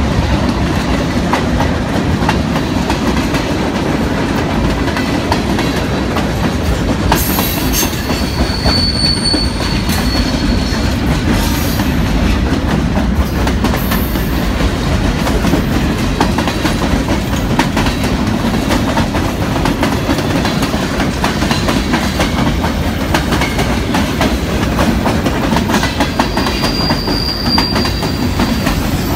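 Freight train cars rolling past with a steady rumble and repeated wheel clicks over the rail joints. A brief high wheel squeal comes about eight seconds in and again near the end.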